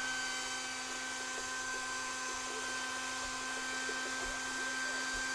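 Hair dryer running: a steady motor whine with several fixed tones over the rush of blown air.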